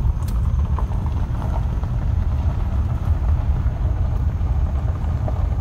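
Steady low rumble of a car driving on a dirt road, heard from inside the cabin: engine and tyres on the unpaved surface.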